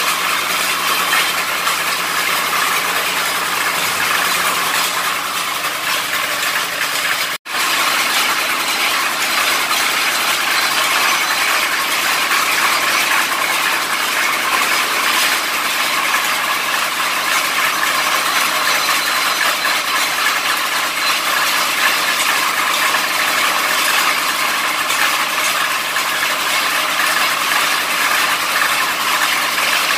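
Borewell drilling rig running steadily as the drill rod turns in the borehole. The sound drops out for an instant about seven seconds in.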